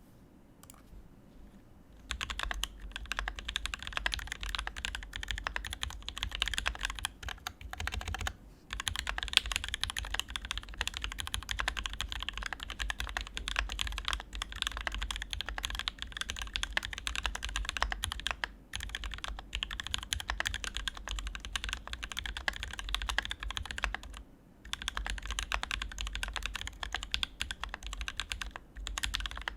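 Continuous fast typing on a Praxis custom mechanical keyboard with an aluminium plate, OA switches lubed with 205g0 and fitted with TX clear films, and Zeal stabilisers. The keystrokes start about two seconds in and pause briefly a few times.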